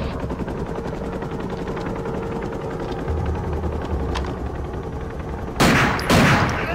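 Steady low drone of a helicopter, then near the end two loud bursts of automatic gunfire from a rifle fired out of it.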